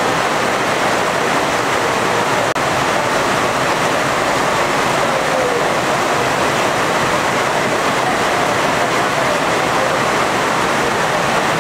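Heavy rain pouring down in a steady, loud hiss, with a brief dropout about two and a half seconds in.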